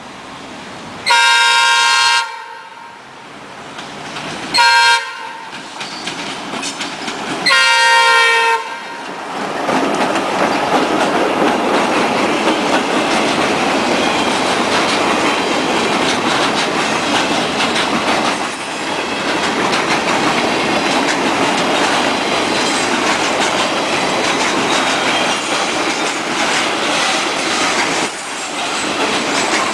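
Norfolk Southern high-hood diesel locomotive horn blowing three blasts, long, short, long, as the train closes in. From about nine seconds in the freight train passes close by with steady rumbling and clickety-clack of wheels over the rail joints.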